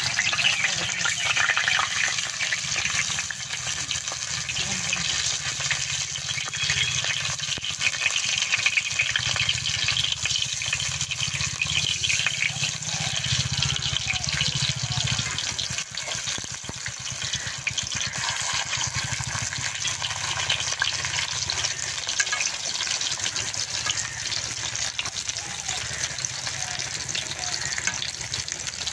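Pumpkin-leaf-wrapped egg fritters sizzling in hot oil in a kadai, a steady crackly frying hiss, with the scrape and clink of a metal spatula as they are turned.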